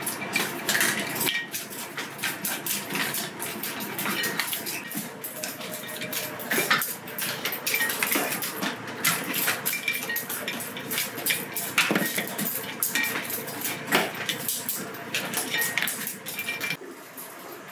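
Dishes and utensils clinking and clattering: many short, irregular knocks and clinks, some ringing briefly.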